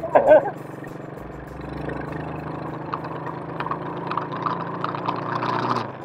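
Engine of an Avantis Hunter 8+ 125 cc ATV running under throttle as the quad moves off through snow. Its steady note grows louder from about a second and a half in.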